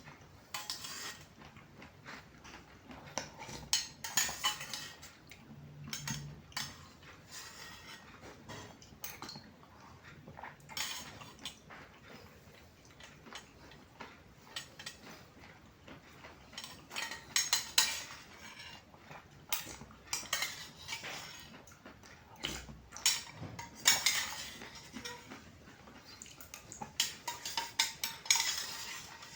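A spoon clinking and scraping irregularly against the container of an iced syrup drink with nata de coco as it is scooped up, with denser runs of clinks in the second half.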